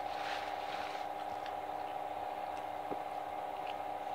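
Steady background hum with a few faint clicks and taps as a paper napkin and fried chicken are handled at the table.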